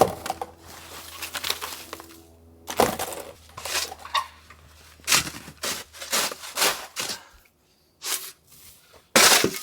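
Snow crunching and scraping in a series of about a dozen irregular strokes, with a short break about three-quarters of the way through and a loud crunch near the end.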